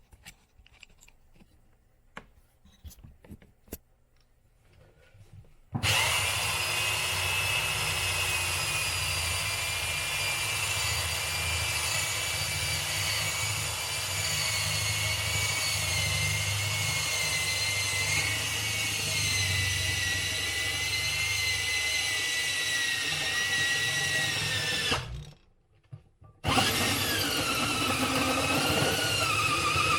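Electric drill boring a hole, its motor whine running steadily and slowly dropping in pitch for about twenty seconds. It stops briefly near the end, then starts again with the pitch sagging under load.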